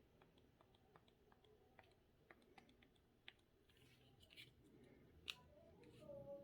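Faint, irregular clicks, a few a second, from the volume control of a Sony MHC-V72D speaker system being worked to turn the sound up.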